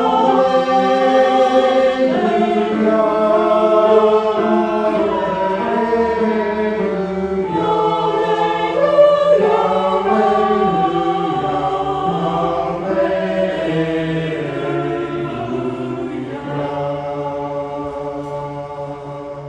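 Choir singing slow, held chords that gradually grow quieter toward the end.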